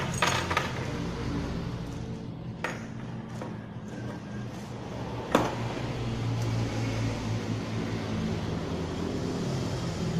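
Small metal and plastic trimmer accessories handled and set down: a few sharp clinks and knocks, the loudest about halfway through, over a steady low background hum.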